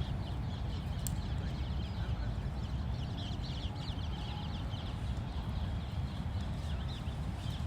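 Birds chirping in quick, repeated short falling calls from about three seconds in, over a steady low rumble.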